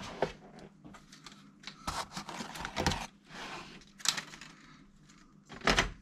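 Clicks, knocks and scraping of circuit boards and plastic casing being handled and fitted back into a Pioneer XDJ-RX controller's chassis, with a louder knock near the end.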